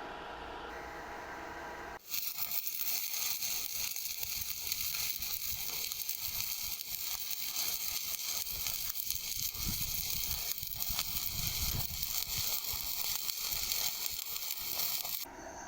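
Electric arc welding: the arc crackles and sizzles steadily while a weld bead is laid. It strikes abruptly about two seconds in and cuts off just before the end.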